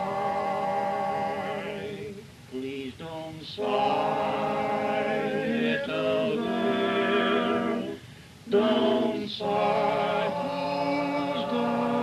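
A barbershop quartet of men's voices singing a cappella in close harmony, holding sustained chords, with two short breaks between phrases, about two and eight seconds in.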